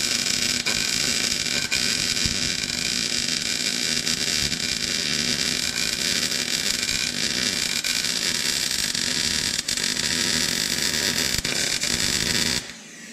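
Wire-feed MIG welding arc laying one long continuous bead: a steady, dense crackle and hiss that stops abruptly a little before the end.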